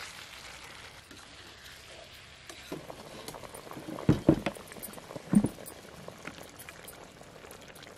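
Spiced biryani water with mint and whole spices boiling in an open aluminium pressure cooker, bubbling steadily, with a few louder pops about four and five seconds in.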